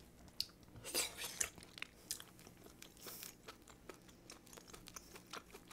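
Close-miked chewing of a mouthful of spicy stir-fried octopus: irregular smacking clicks, loudest about a second in and again around three seconds in.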